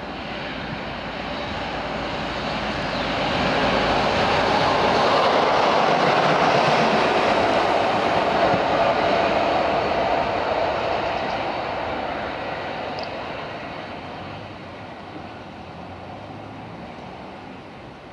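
Two Class 43 HST power cars running light pass at speed. Their engine and wheel roar builds to a peak in the middle, then fades as they draw away.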